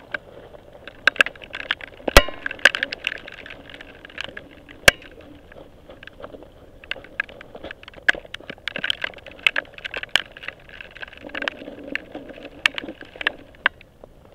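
A steel carabiner clicking and clinking against a bolt hanger as it is handled and clipped with gloved hands: a run of sharp, irregular metallic clicks, the loudest about two seconds in.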